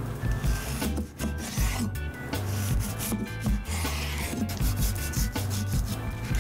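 Chef's knife slicing through raw pork tenderloin on a wooden cutting board, in a series of back-and-forth cutting strokes with the blade meeting the wood.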